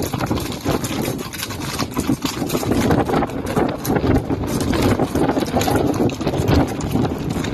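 Horses galloping at high speed: a dense, continuous rumble of many fast hoofbeats.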